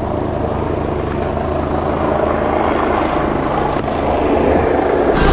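Helicopter approaching, its rotor and engine noise growing steadily louder over the low, steady hum of the ship's engines.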